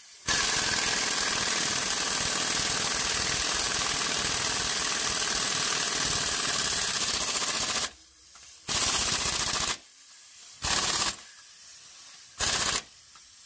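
Impact wrench hammering on the crankshaft pulley bolt of an Isuzu 4HF1 diesel engine: one long run of about seven and a half seconds, then three short bursts.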